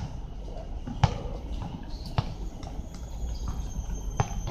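A basketball being bounced slowly on a hard court, a single sharp bounce about once a second.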